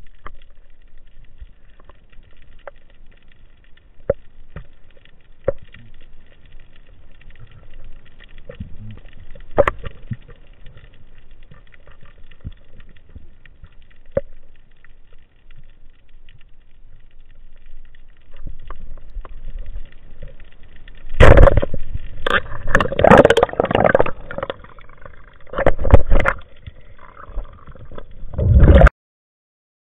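Underwater sound picked up by an action camera in a waterproof housing: low water noise with scattered small clicks and knocks, then, about two-thirds through, a series of loud rushing bursts that cut off abruptly just before the end.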